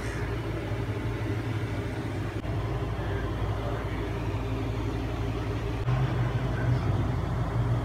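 Steady low mechanical hum, louder from about six seconds in.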